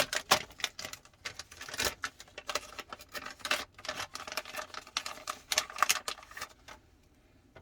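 Hands handling a small replacement part and its packaging on a workbench: a run of irregular sharp clicks, taps and rustles that dies away near the end.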